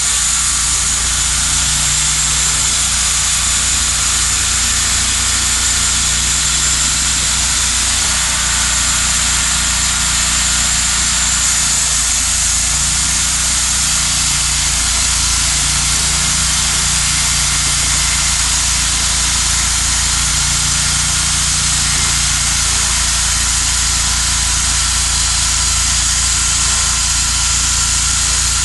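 Cook's MP-32 portable band sawmill sawing a log: its engine runs steadily under load over a high, even hiss of the band blade cutting through the wood.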